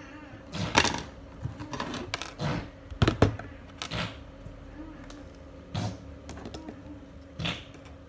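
Hand tools and small metal parts being put down and picked up on a wooden workbench during printer board repair. Soldering iron, pliers and a USB connector make a handful of sharp, irregular knocks and clicks, the loudest two about three seconds in, over a faint steady hum.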